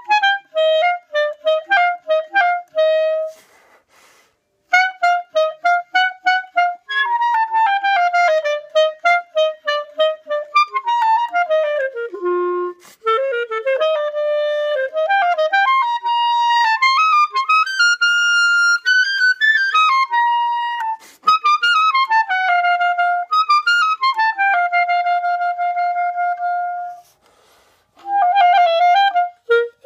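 Solo E-flat clarinet playing an étude: quick detached notes at first, then smooth runs climbing and falling through the upper range, with two short pauses, about four seconds in and near the end.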